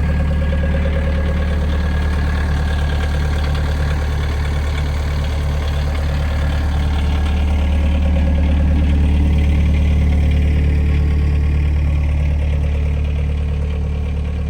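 Manitou 1500R skid steer loader's diesel engine idling steadily, a deep even hum that swells a little about two-thirds of the way through.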